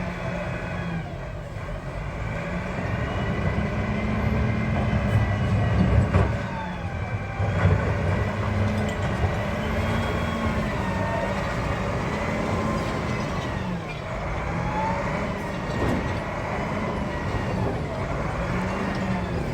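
Heavy diesel engine speeding up and slowing down several times, with a whine gliding up and down above it and a couple of sharp knocks about six and seven and a half seconds in.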